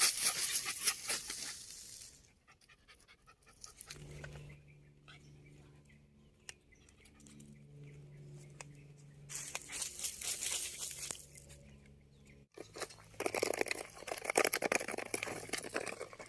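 A Japanese spitz dog panting, with crunching and rustling in short spiky stretches. In the middle stretch, a low steady hum replaces them.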